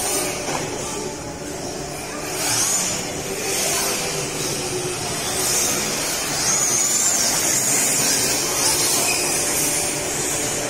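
Electric motors of RC drift cars whining, the high pitch rising and falling several times as the cars speed up and slow through the track, over a steady background din.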